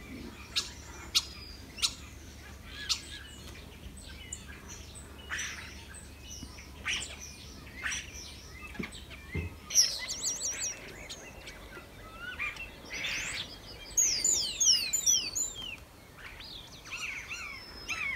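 Birdsong from several birds: many short chirps and clicks, a rapid warble about ten seconds in, and a run of falling whistles a few seconds later. A low steady rumble runs under the first half and stops about halfway through.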